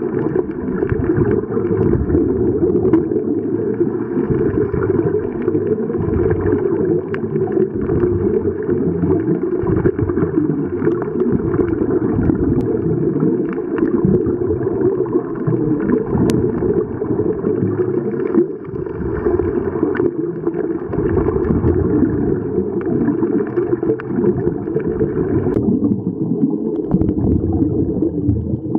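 Underwater sound picked up by a camera in a waterproof housing: muffled water noise and the gurgle of scuba divers' exhaled regulator bubbles. It turns duller near the end.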